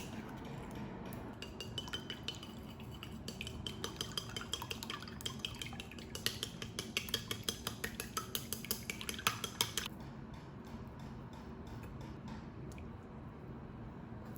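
A metal utensil clinks fast and regularly against a dish, as in stirring or whisking by hand. The clinking grows louder near the middle and stops abruptly about two-thirds of the way through.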